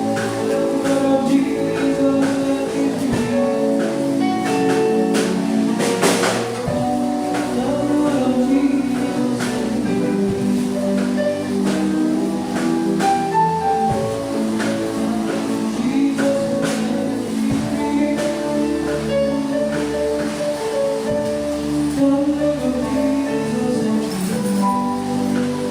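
Church worship music: steady held chords with light percussion hits.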